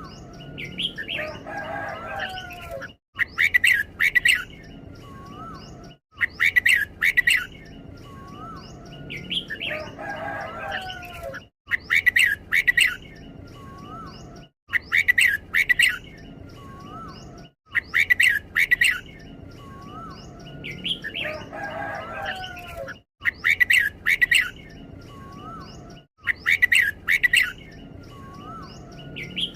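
Red-whiskered bulbul singing: loud clusters of sharp chirps come every few seconds, often doubled, two bursts back to back. Between them are softer whistled and warbled notes.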